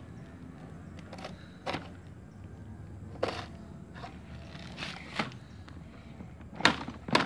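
A yellow plastic toy excavator bucket knocking and scraping on gritty dirt: scattered light taps and clicks, with two sharper knocks near the end.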